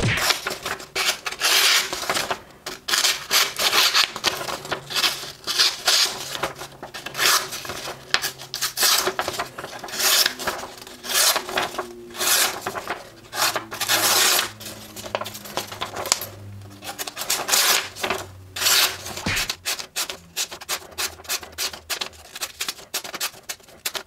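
Kershaw Leek folding knife slicing through a sheet of printer paper, a crisp rasping cut about every second, one slice after another, as a test of how sharp its edge is.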